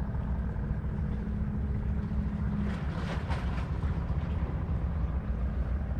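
Low, steady engine drone of a boat out on the water, with wind on the microphone, and a brief scratchy noise about three seconds in.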